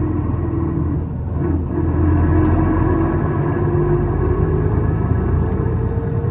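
Isuzu Erga (PKG-LV234L2) diesel city bus under way, heard from inside the cabin: a steady low drone with a whining tone over it, which climbs slightly in pitch near the end. This bus is singled out for an abnormal running noise.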